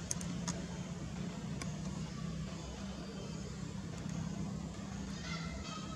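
Steady low engine hum of a motor vehicle running nearby, with a few light clicks in the first two seconds and a brief high-pitched squeak near the end.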